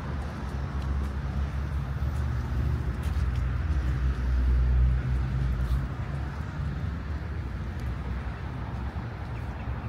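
Street traffic: a motor vehicle passing close by, its low engine rumble building to a peak about halfway through and then fading back into the general traffic noise.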